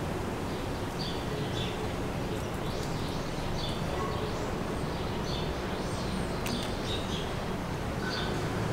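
Small birds chirping, short high notes about once a second, over a steady low rumble from a rail car approaching slowly on the elevated track.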